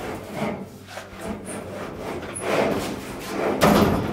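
A dryer's metal drum scraping and bumping against the sheet-metal cabinet sides as it is worked into place between them, in several short scraping spells, the loudest near the end.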